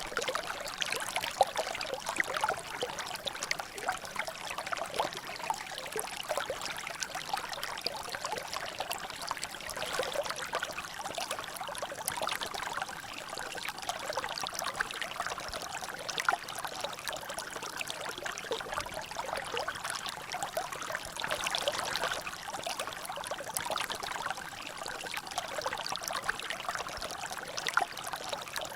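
Water trickling and dripping steadily in a natural drainage channel, a continuous splashing with many small irregular drops.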